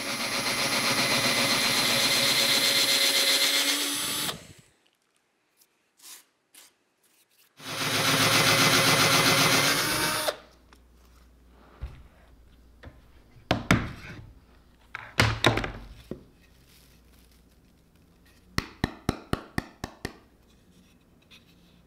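Power drill with a half-inch Forstner bit boring into an alder board: two steady runs of drilling a few seconds each, separated by a pause. Scattered knocks follow, and near the end a quick run of about six clicks.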